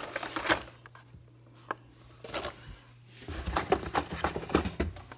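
Carded Hot Wheels cars being handled and stacked: plastic blister packs and cardboard backing cards clacking and rustling against each other in scattered taps, with a busier run of clatter in the last couple of seconds.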